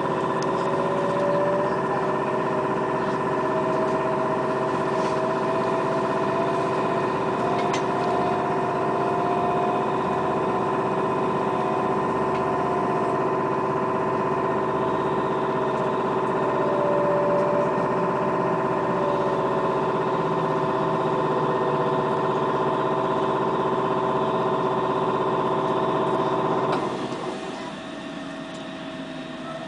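Electric drive of a Bogdan trolleybus whining while the bus runs: several steady high tones, one of them slowly rising and falling in pitch, over running noise. Near the end the whine cuts off suddenly and a quieter running sound remains.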